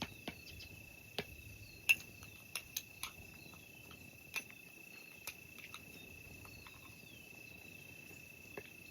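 Irregular sharp pops and clicks of a small campfire catching on wet wood, a dozen or so scattered through, the loudest about two seconds in, over a steady high cricket trill.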